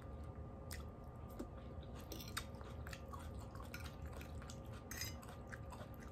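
A person chewing food, faint, with a few soft clicks and crunches scattered through.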